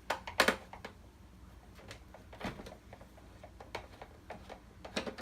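Scattered clicks and taps of a screwdriver working screws out of a projector's plastic case: two sharp clicks just after the start, a few single ones in the middle, and a quick run of clicks near the end.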